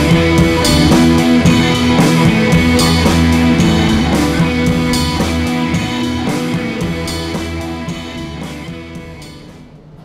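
Background music with a steady beat, fading out over the last few seconds.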